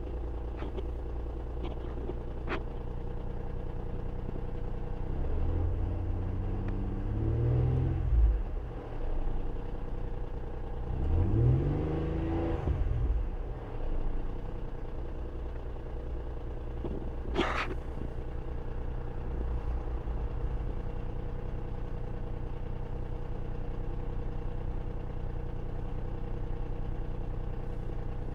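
Ford Probe GT engine idling with hydraulic lifter noise, revved twice about five and eleven seconds in, each time rising and falling back to idle, raising oil pressure to see how the lifter noise responds. A single sharp click comes about two thirds of the way through.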